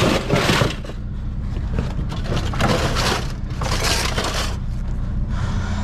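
Aluminum scrap being crunched and rattled as it is handled, in four short bursts, over the steady hum of an idling vehicle engine.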